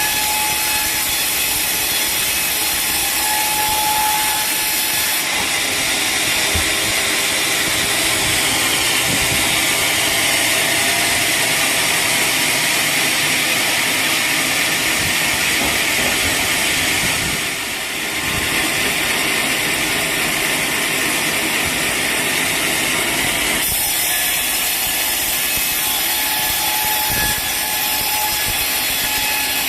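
Sawmill saw cutting through a teak log: a loud, steady hiss of the blade in the wood, heavier from about five seconds in until about twenty-four seconds, with a thin steady whine of the running saw before and after.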